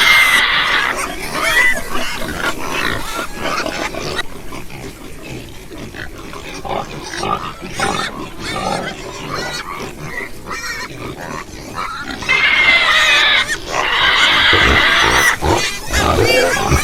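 Domestic pigs grunting, with loud, high-pitched squeals right at the start and again for about three seconds from twelve seconds in.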